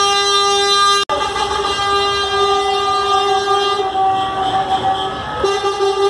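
Truck air horns held in one long, steady, loud note, with a brief break about a second in and a small step in pitch near the end as the horn sound shifts.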